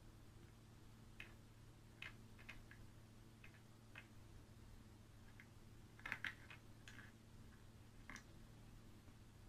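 Near silence over a faint steady low hum, broken by scattered soft clicks and ticks, a small cluster of them about six seconds in: fingers handling fishing line wound around a plastic drinking straw.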